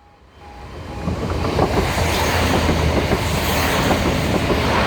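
Train passing over a level crossing close by, its noise rising quickly in the first second or so to a steady loud rumble and rush of wheels on the rails.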